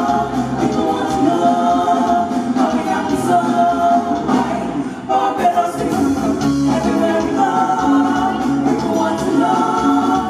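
Women's vocal group singing live into microphones with a band of electric guitar, bass guitar and drums, several voices together on sustained notes.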